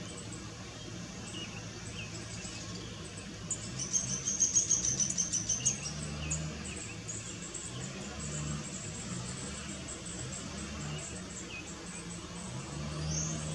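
Small birds calling: faint high chirps throughout, with a loud rapid run of high chirps about four seconds in that lasts a couple of seconds. A low hum comes and goes underneath.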